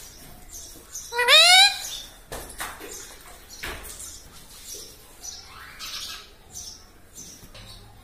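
Indian ringneck parakeet giving one loud call that rises in pitch about a second in, followed by soft chirps and small clicks.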